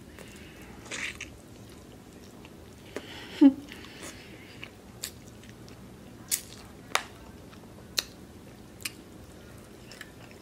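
Close-miked eating: chewing with wet mouth smacks and a string of sharp clicks. About three and a half seconds in comes a louder, brief sound that slides in pitch.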